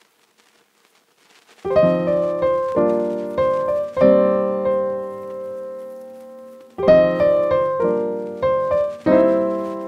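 Background piano music. After a moment of silence it starts about two seconds in with a slow melody of struck notes and chords that ring and fade, and a new phrase begins near the end.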